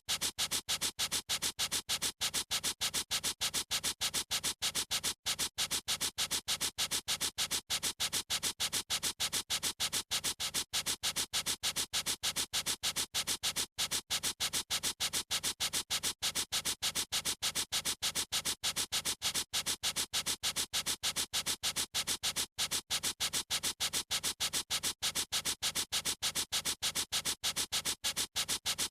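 Felt-tip marker pen squeaking in quick, even back-and-forth strokes, about four or five a second, bright and hissy.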